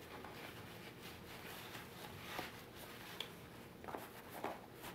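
Faint rustling of a padded nylon pouch being handled and lifted off a gas canister, with a few soft ticks and scuffs.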